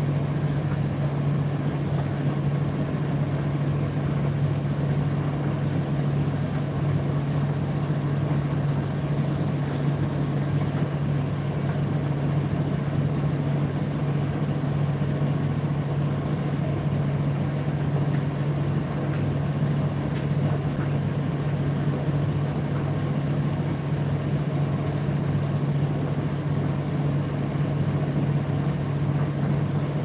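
Indesit IDC8T3 8 kg condenser tumble dryer running mid-cycle: a steady motor hum with the even rumble of the turning drum and fan, unchanging throughout.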